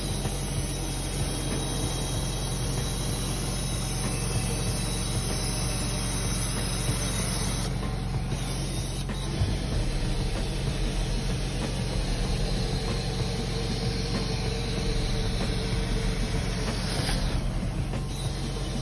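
Truck-mount hot-water carpet extractor running through a Vantool cleaning wand: a steady vacuum roar with a low hum and a high spray hiss as the wand is pulled across the carpet. The hiss cuts out briefly twice, about eight seconds in and near the end.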